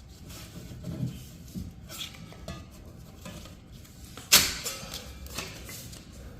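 Light taps, rustles and clinks of hand tools and drywall tape being handled, with one sharper clack about four seconds in.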